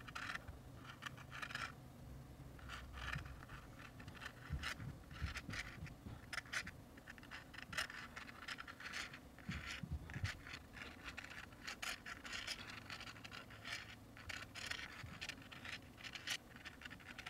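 Tip of a paint-loaded cedar twig scratching across watercolour paper in many short, irregular strokes.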